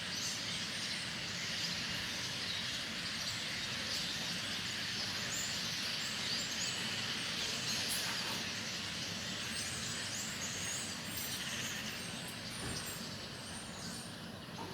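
A large flock of birds chattering: many short chirps overlapping in a dense, continuous din over a steady background hiss.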